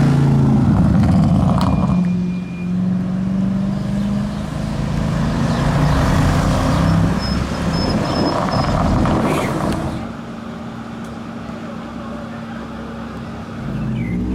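Audi RS6 C7's twin-turbo V8 through a loud aftermarket exhaust, running hard and revving with a couple of sharp cracks. About ten seconds in it drops to a quieter steady drone, and its pitch starts to climb again near the end.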